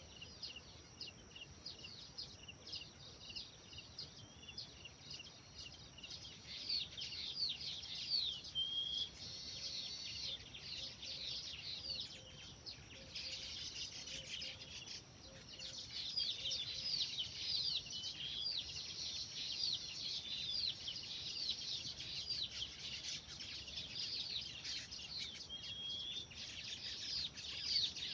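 A chorus of small birds chirping, with many quick downward-sweeping chirps repeating rapidly and overlapping. It grows louder about six seconds in.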